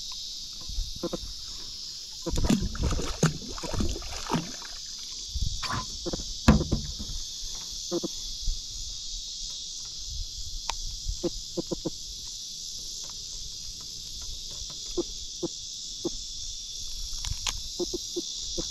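Steady high drone of insects from the surrounding marsh, with scattered close knocks, rustles and clicks as a gafftopsail catfish is handled and its line worked free by hand.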